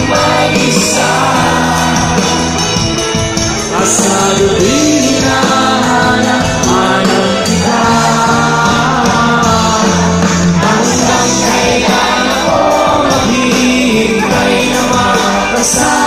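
A live band playing a song over a loud stage sound system, with a lead singer carrying the melody.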